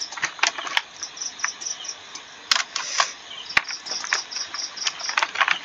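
Typing on a computer keyboard: scattered key clicks at an uneven pace, over a faint, rhythmic high-pitched chirping in the background.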